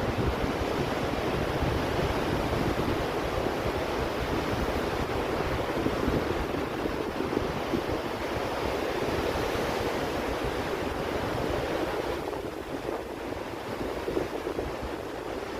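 Ocean surf washing continuously onto a beach, with wind buffeting the microphone as an uneven low rumble. The wash eases a little about twelve seconds in.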